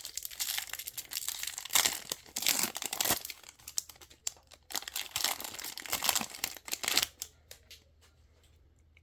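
Trading card pack wrapper being torn open and crinkled by hand: a string of rips and crinkles that stops about seven seconds in.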